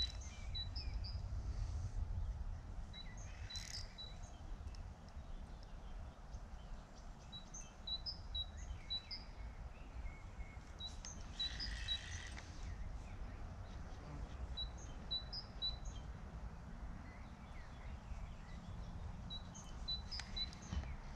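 Small birds chirping: short, high, repeated notes in little phrases every few seconds, over a low steady rumble, with a couple of brief rustles.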